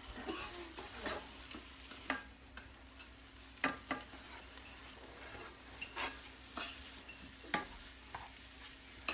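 A utensil stirring cauliflower fried rice in a frying pan: scattered scrapes and sharp taps against the pan, about ten in all, over a faint sizzle.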